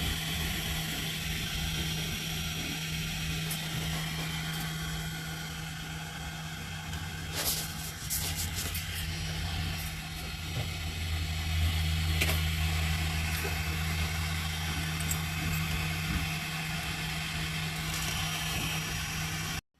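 Steady machine hum with a constant low tone. A deeper hum swells in about halfway through and fades a few seconds later, and a few sharp clicks come about eight seconds in.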